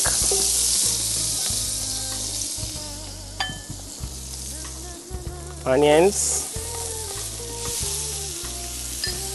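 Garlic sizzling in melted margarine in a frying pan as it is stirred with a spatula. The sizzle flares up again a little after six seconds as chopped onions go into the pan.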